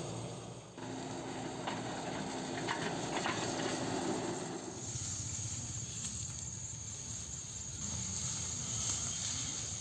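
A small motor running steadily with a few clicks, fading out about halfway through, after which a steady high buzz carries on and grows a little louder near the end.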